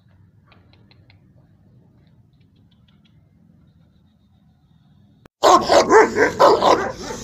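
After about five seconds of faint background noise, a Kohati Gultair dog starts barking loudly and repeatedly, about three barks a second.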